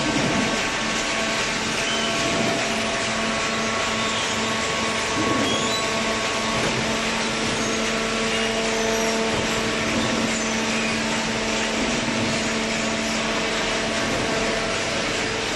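Cardboard baler machine running: a steady machine hum with several held tones over a broad hiss.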